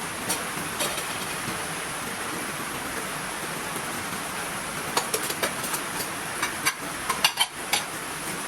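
Steady heavy rain, with a run of sharp clicks and knocks in the second half.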